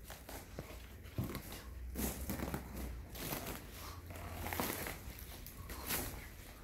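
Footsteps with rustling and crackling of dry, overgrown shrubs and brambles as someone pushes through them, in irregular surges.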